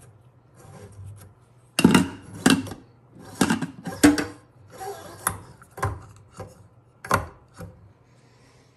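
Braided pull-down spray hose being fed down through a kitchen faucet's body, rubbing and knocking against the faucet and the stainless steel sink in a string of irregular clatters.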